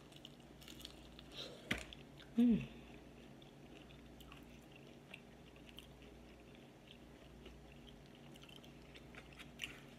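A person chewing a bite of fried chicken wing with faint, scattered wet clicks, and a short vocal sound about two and a half seconds in.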